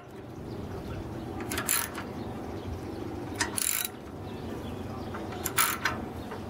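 Ratchet wrench clicking in three short bursts about two seconds apart as it is swung back and forth on the cylinder head bolts of a Briggs & Stratton model 14 engine, loosening them to pull the head.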